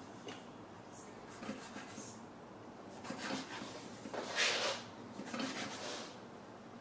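Plastic bench scraper cutting down through soft dough and scraping on a bamboo cutting board, a series of short rasping strokes with the loudest, longest one about four and a half seconds in.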